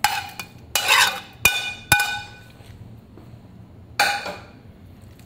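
A kitchen utensil clinking and knocking against cookware as chopped meat is scraped into a pot: a handful of sharp strikes, several with a short ringing tone, the sharpest about a second and a half and two seconds in, and one more about four seconds in.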